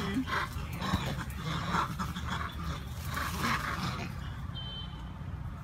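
Macaques calling: several short, rough calls over the first four seconds, then quieter.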